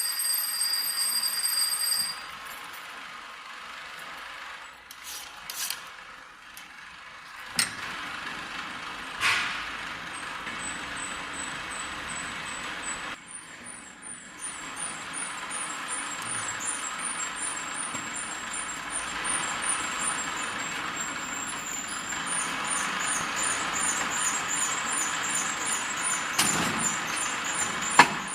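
Ice cream cone making machine running: a hiss that slowly grows, with a rapid, regular high ticking over it from about ten seconds in. Before that there is a steady high tone for the first two seconds and a few sharp clicks.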